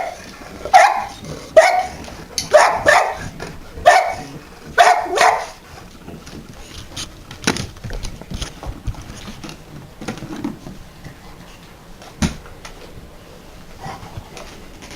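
English springer spaniel barking, about seven loud barks over the first five seconds, then it stops. A single sharp knock comes later.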